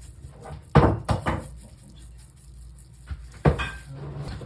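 Kitchen items being handled, with a few short knocks and clatters. The loudest come about a second in and again about three and a half seconds in.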